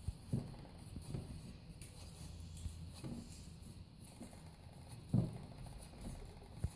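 Hands kneading sticky noodle dough in a large earthenware bowl: soft, irregular pats and squishes, with a few dull thumps, the loudest about five seconds in.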